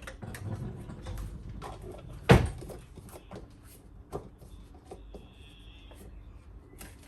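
Containers and items being knocked and set down on fridge shelves while the fridge is arranged: a series of short knocks and clicks, with one sharp loud knock about two seconds in and smaller ones after.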